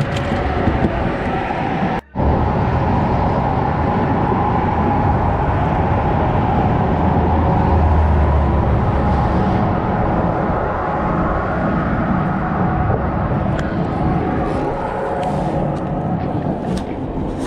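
Steady rumble of road traffic passing on a bridge. It cuts out sharply for a moment about two seconds in.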